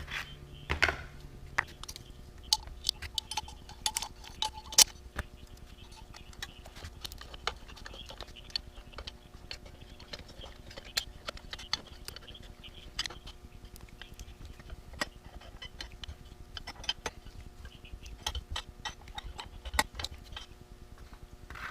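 Irregular small metallic clicks, ticks and clinks of hand tools and bolts as a modified chainsaw muffler is fitted back onto a Stihl MS211.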